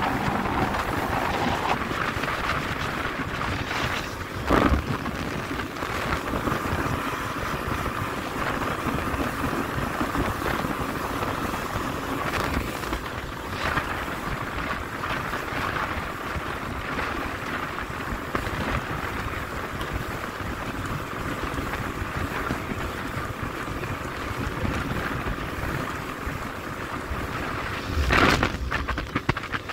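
Steady wind rushing over the microphone aboard an 18 ft panga under way on open water, with the Yamaha F25 outboard's hum clear only in the first couple of seconds. Two sharp thumps stand out, one about four and a half seconds in and one near the end.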